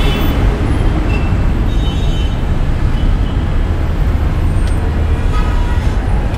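Steady rumble of dense road traffic, engine noise heavy in the low end, with faint higher tones mixed in.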